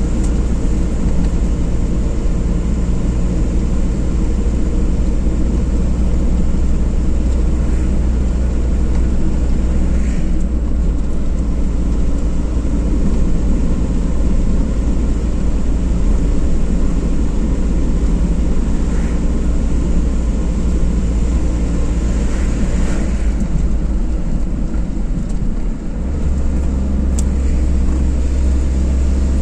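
Car driving along a road: steady engine and tyre noise, a constant low rumble, with a brief dip about 26 seconds in, after which the low hum is stronger.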